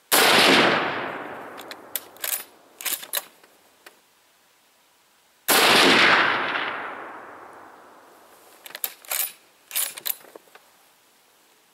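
Mosin-Nagant 91/30 bolt-action rifle firing two 7.62x54R rounds about five and a half seconds apart, each shot followed by a long fading echo. Between the shots come quick metallic clacks of the bolt being worked.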